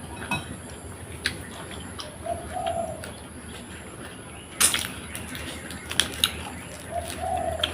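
A dove cooing, a short low coo twice, a few seconds apart. Scattered sharp clicks, with a louder clatter about halfway through.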